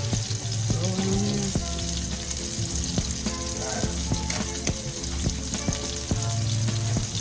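Food frying in a pan, a steady sizzle with scattered pops and clicks, over background music.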